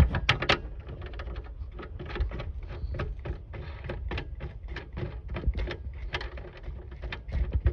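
Rapid, uneven clicking, about five clicks a second, as a tail-light assembly's retaining screw is turned in by hand.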